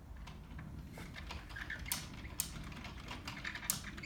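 Small irregular ticks and scratches of fingers working a thread wrap on a fishing rod blank, with a few sharper clicks about two seconds in and near the end, over a low steady hum.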